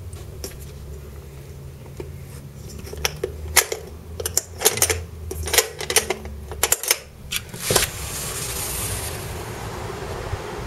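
Metal latch on a sliding balcony door being worked by hand: a quick run of sharp clicks and rattles. At about eight seconds the door opens onto a high balcony and steady wind noise on the microphone takes over.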